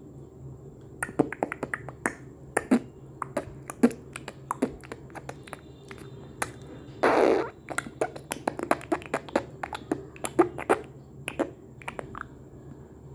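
Rapid, irregular series of sharp clicks or snaps, some in quick runs, with a brief rush of noise lasting about half a second near the middle.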